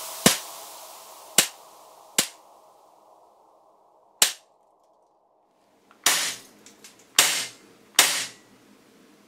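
Airsoft pistol firing seven single shots, a second or so apart, with a gap of about two seconds in the middle; the last three have a longer ring.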